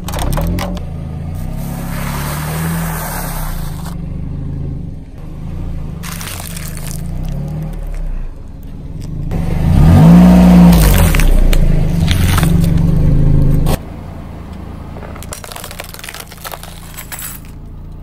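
A car creeping forward over objects on pavement: the engine running with its pitch rising and falling, and the tyres crunching and scraping as things are crushed under them, in several short takes. The engine is loudest for a few seconds past the middle, then cuts off abruptly.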